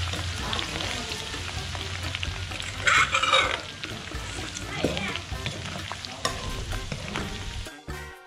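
Minced garlic sizzling and bubbling in hot oil in a wok, stirred with a metal ladle, with a louder burst about three seconds in.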